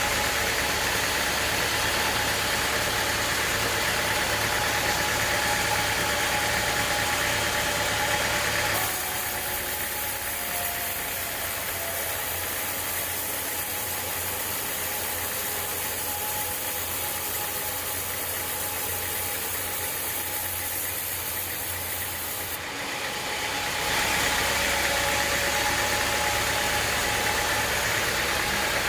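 Sawmill machinery running steadily, a motor-driven band saw with a steady hum. The sound turns abruptly quieter and thinner about a third of the way in, then returns to the fuller running sound after a brief dip, some five seconds before the end.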